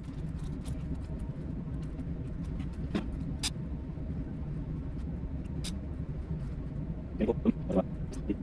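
Steady low hum of a ship's machinery, with scattered light clicks and taps from handling a fishing reel and small parts, and a cluster of louder handling noises about seven seconds in.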